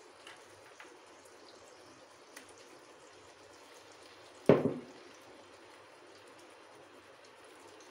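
Minced-meat patties (keema tikkis) shallow-frying in oil on a flat pan: a faint steady sizzle with a few small oil pops. One sharp knock about halfway through.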